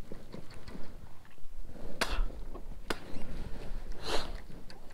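Two sharp clicks about a second apart, then a short hiss, from handling a baitcasting rod and reel in a fishing kayak.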